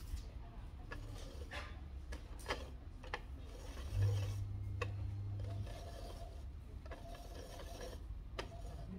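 Small plastic clicks and knocks of a toy washing machine being handled, its door and buttons worked by hand, with a short low hum about four seconds in, lasting a second and a half.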